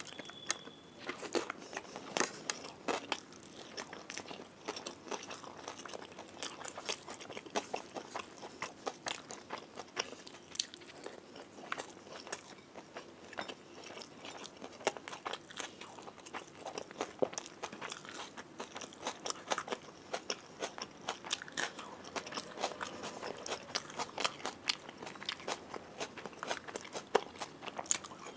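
Close-miked eating sounds of a person eating rice and fried prawns by hand: chewing and crunching with many short, sharp mouth clicks.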